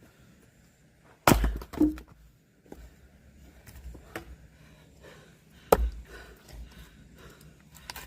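Axe splitting firewood: two sharp chopping strikes about four seconds apart, the first followed by a smaller knock.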